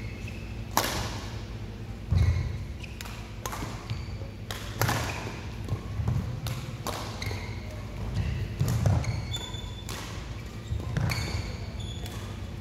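Badminton rally: a series of sharp racket strikes on the shuttlecock, with footfalls thudding on the court and short shoe squeaks on the court mat, ringing in a large hall.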